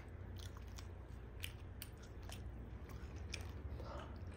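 Close-miked eating sounds of beef biryani eaten by hand: chewing with scattered sharp mouth clicks and smacks, over a low steady hum.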